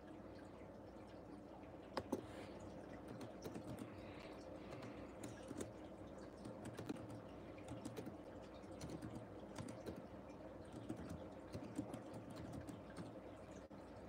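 Faint, irregular light tapping and clicking, with a louder pair of clicks about two seconds in, over a low steady room hum.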